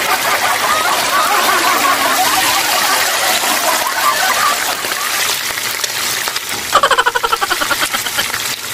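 Salmon steaks sizzling steadily in hot oil in a frying pan, with a short rasping sound about seven seconds in.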